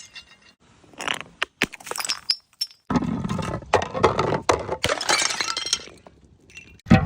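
Glass breaking: a few sharp clinks with brief glassy ringing, then about three seconds in a long shattering crash of many pieces that dies away near the end, and another crash starts just as it ends.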